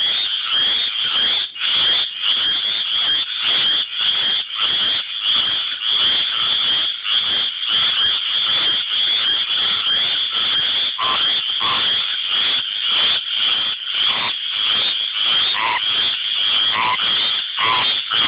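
Tree frogs calling in a dense chorus: a continuous high-pitched trilling with calls repeating about three times a second, and short lower notes joining in past the middle. These are males' advertisement calls to attract mates.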